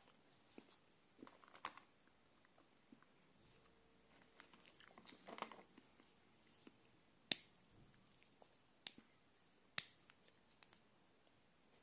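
Pieces of a Cadbury White Buttons Easter egg's white chocolate shell handled and snapped by hand: faint clicks and shuffling of pieces, then three sharp snaps in the second half.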